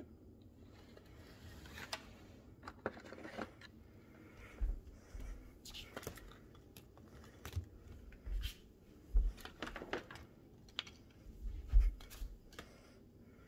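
Scattered light clicks and crinkly rustles with dull low thumps every second or so, the handling noise of objects and paper being moved around on a cluttered counter while the phone is carried.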